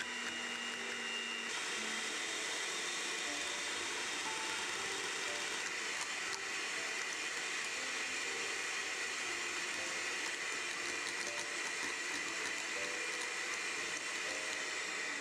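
Electric hand mixer running steadily at a constant speed, its twin beaters whipping a thickening cream mixture in a glass bowl.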